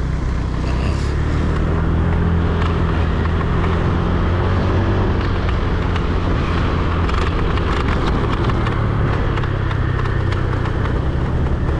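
Motorbike engine running steadily while riding along a road, under a steady rush of wind and road noise.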